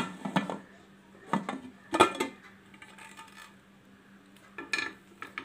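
Aluminium pressure cooker lid being unlocked and lifted off: a few separate metal clanks and knocks, the loudest about two seconds in and one near the end with a short ring.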